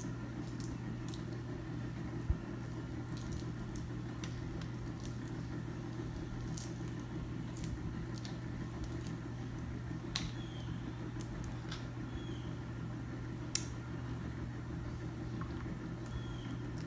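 Cooked seafood shells being cracked and picked apart by hand: scattered small clicks and squishes, with a few sharper cracks, over a steady low background hum.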